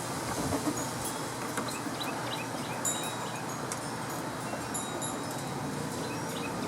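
Wind chimes tinkling in scattered light high notes over a steady rushing background noise.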